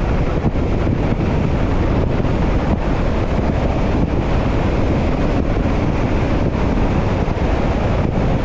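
Steady wind rushing over a car-mounted camera's microphone while driving, mixed with tyre noise on a wet road.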